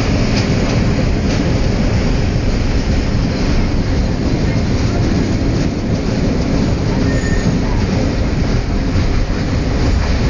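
Suburban passenger train running on the rails: a steady, loud rumble with faint wheel clicks now and then.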